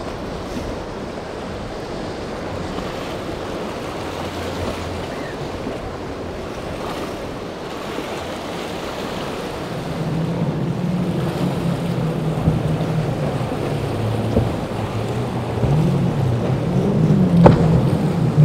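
Waves and wind on the microphone with a faint outboard motor running; about ten seconds in, louder outboard engines come in, running steadily and then rising and falling in pitch near the end, with a sharp thump shortly before the end.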